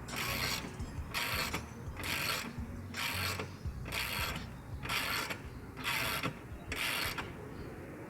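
A ratcheting hand tool worked in steady strokes: eight rasping ratchet strokes, a little under one a second.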